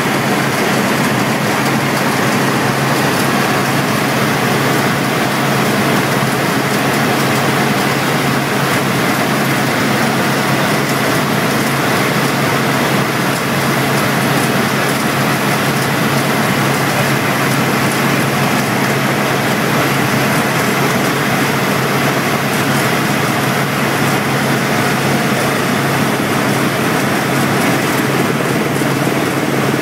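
Helicopter in flight heard from inside the cabin: the steady drone of the engine and rotors, with a constant low hum under a wide, even rush of noise.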